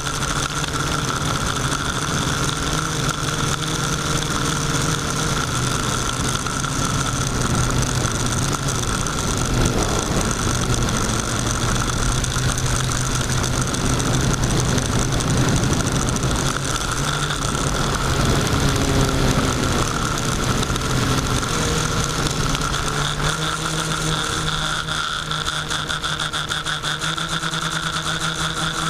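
Quadcopter's electric motors and propellers whirring steadily as heard from the onboard camera, several constant tones layered together, with the lower pitches shifting as the throttle changes and the sound growing somewhat louder and rougher through the middle.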